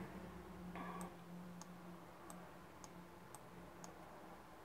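Quiet room with faint, light ticks about twice a second. A brief rustle comes about a second in.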